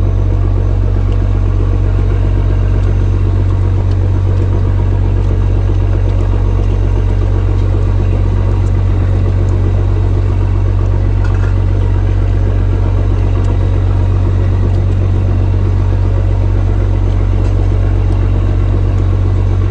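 A fishing trawler's diesel engine running with a steady, loud, low drone that holds an even level throughout.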